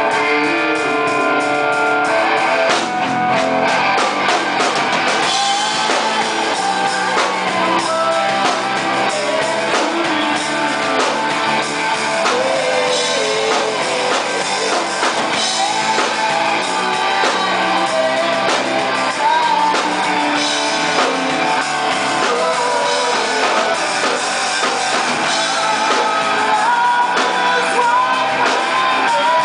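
Live rock band playing: a man sings into a microphone over electric bass, electric guitar and drums.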